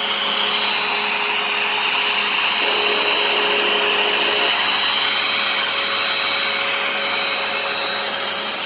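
Hoover PowerDash carpet cleaner's suction motor running steadily on a slow dry pass over wet carpet, extracting the cleaning solution without spraying more.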